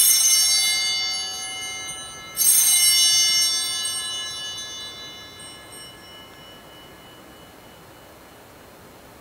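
Altar bells rung at the elevation of the consecrated host: two rings, one right at the start and another about two and a half seconds later, each a bright cluster of high ringing tones that fades away over a few seconds.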